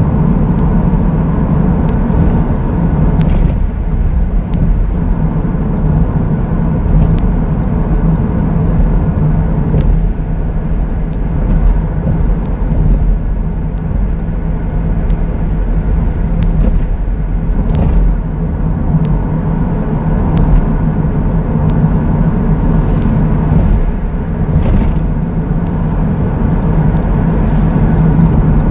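Car driving along a road: a steady drone of engine and road noise, with a handful of faint ticks and knocks scattered through it.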